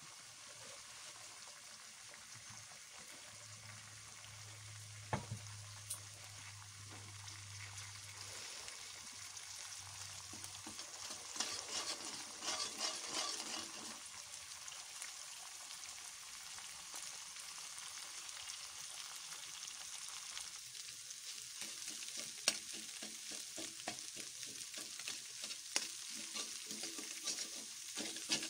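Eggs sizzling in hot oil in a metal wok while a metal spatula breaks and scrambles them into crumbs, scraping and tapping against the pan. The taps and scrapes come more often in the last third.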